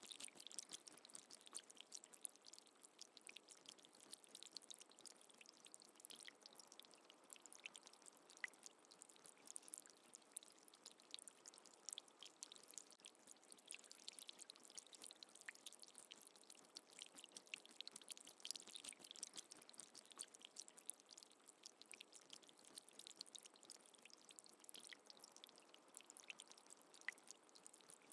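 Faint water dripping and trickling: a steady scatter of small drips and ticks over a soft wash of water.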